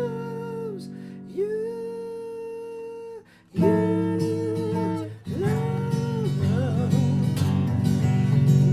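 Song music in an instrumental break: strummed acoustic guitar chords under a lead melody that glides and bends between notes, with a brief drop-out about three seconds in.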